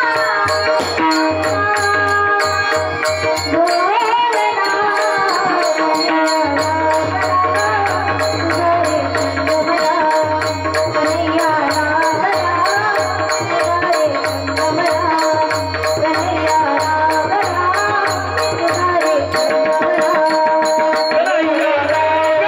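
Marathi Varkari kirtan devotional song: a voice singing a melody over a steady drone, with a mridang drum and small hand cymbals keeping a fast, even rhythm.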